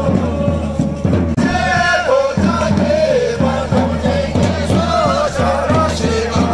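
A group of voices singing a Tibetan folk dance song in unison, a melodic chant led by a singer on a microphone.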